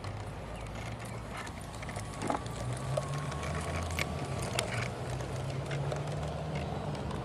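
LGB garden-railway model of the HSB steam locomotive 99 7238-1 running past with its coaches: a low running hum with scattered clicks of the wheels on the track.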